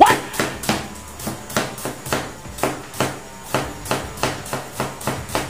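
Large kitchen knife chopping shallots on a wooden cutting board: quick, even strokes of the blade knocking the board, about four a second, the first one loudest.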